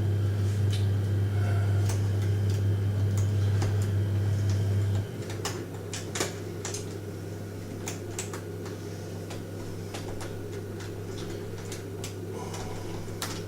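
Irregular small metal clicks and ticks of a lock pick working the pins of a pin-tumbler lock, over a steady low hum that drops in level about five seconds in.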